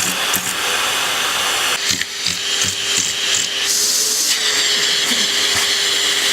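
Vacuum cleaner running: a steady motor hum under a loud rushing hiss of air. The airflow sound shifts about 2 seconds in and again near the middle, as the suction changes.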